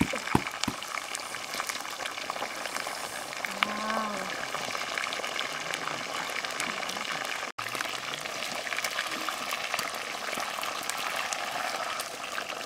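Whole fish shallow-frying in hot oil in a wok: a steady sizzle full of small crackles and spits, with a few sharp knocks of a wooden spatula against the pan near the start.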